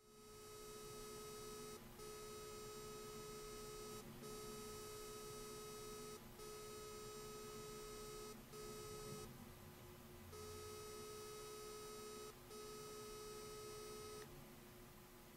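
Mobile PERS emergency pendant buzzing while it tries to establish a connection to the monitoring center. The steady buzz comes in stretches of about two seconds with brief breaks and stops near the end.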